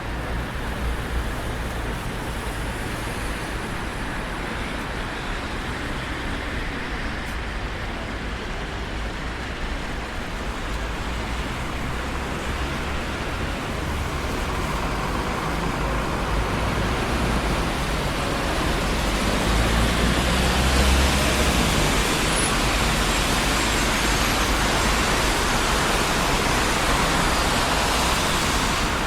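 Traffic on a busy city street: a steady wash of tyre and engine noise, swelling louder in the second half as a vehicle passes close.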